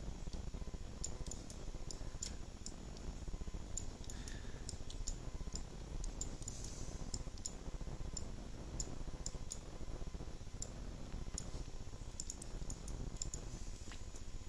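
Computer mouse clicking, with short sharp clicks at irregular intervals, sometimes several in quick succession, over steady low background noise.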